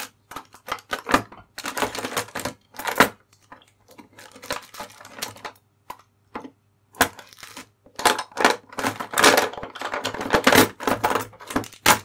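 Small tools and parts clattering and sliding about inside a tool drawer as it is slammed shut, after a stretch of scattered clicks and knocks; the clatter is densest and loudest in the last few seconds.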